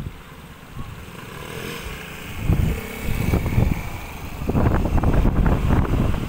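Several Vespa scooters riding past with their small engines running. The sound grows louder about halfway through as the riders come by.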